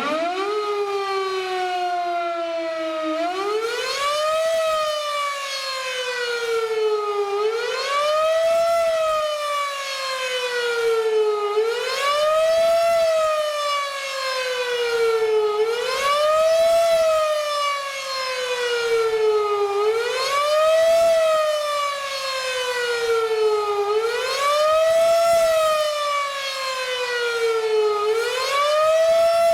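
Fire station siren winding up to a steady tone, then from about three seconds in going into a repeating wail: each cycle rises quickly and slides slowly back down, about once every four seconds. It is the station's alert for a fire company call.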